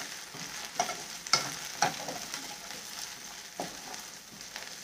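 Green peas and fried onions sizzling in hot oil in a non-stick frying pan as they are stirred with a spoon, with a few sharp taps and scrapes of the spoon against the pan, the loudest about a second and a half in.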